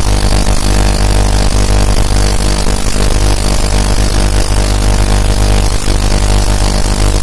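Ultrasonic cleaner running: a loud, steady electrical buzz over a deep hum, without a break.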